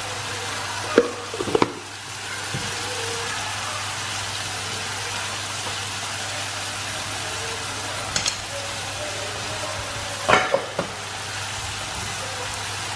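Sliced onions sizzling steadily in oil in a steel kadai, with a few sharp taps of a spoon against the pan as ginger-garlic paste is dropped in: two about a second in, one near eight seconds and a cluster around ten seconds.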